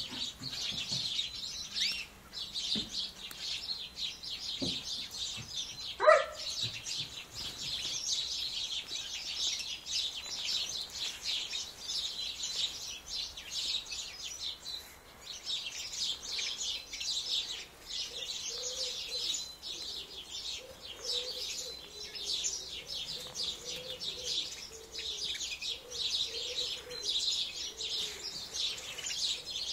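A flock of small aviary songbirds chirping and twittering together in a dense, continuous chatter. A single short rising call stands out about six seconds in.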